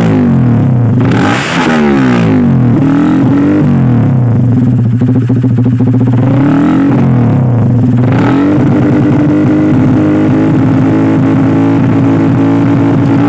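Honda Sonic 150R single-cylinder engine revved through a Fanterra Jigsaw aftermarket exhaust: a sharp throttle blip about a second in, dropping back toward idle, another rise and fall, then held at a steady higher engine speed for the last several seconds.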